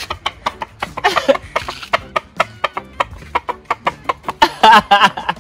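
Chickens clucking: a quick, irregular run of short sharp clucks.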